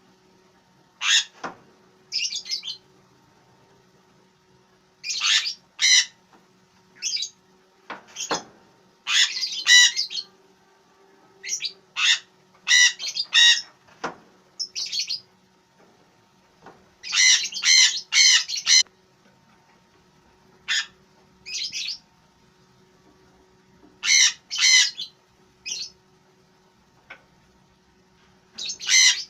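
Newly hatched chicks peeping inside an egg incubator, in short high calls that come in clusters every second or two. A faint steady hum from the incubator's fan runs underneath.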